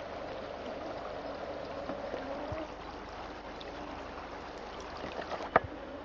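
Shallow, fast river water running steadily over a gravel riffle. A single sharp click comes about five and a half seconds in.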